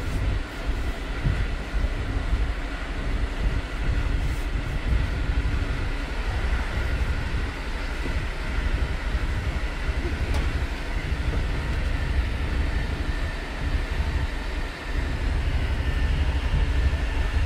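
Passenger train running: a steady rumble with a faint high whine over it.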